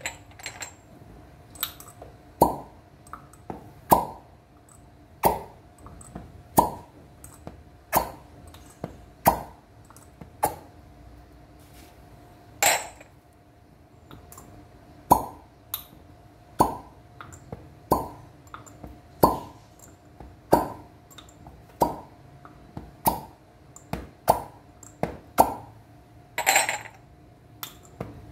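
Glass cups in fire cupping popping against bare skin with a sharp plop roughly every second and a quarter as the suction takes hold or breaks, with a short pause about halfway through.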